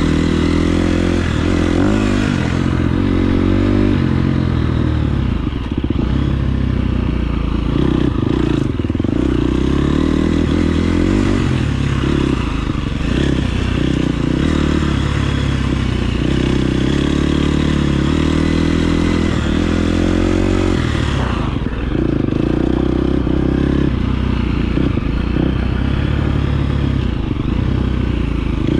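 KTM 350 SX-F motocross bike's single-cylinder four-stroke engine running hard on a dirt track, its revs rising and falling repeatedly with a few brief drops in level.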